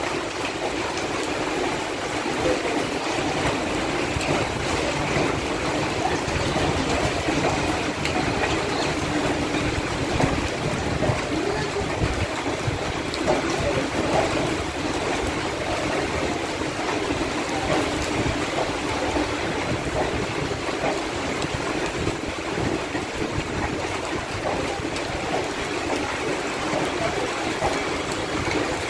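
Garib Rath Express passenger coaches rolling past on the rails, a steady rushing noise with scattered short clicks.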